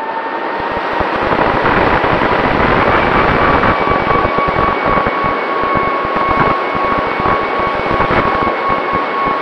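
FPV quadcopter's motors and propellers whining in flight, heard through the onboard camera, with wind buffeting the microphone. The whine steps up in pitch about three seconds in as the throttle rises, then holds steady.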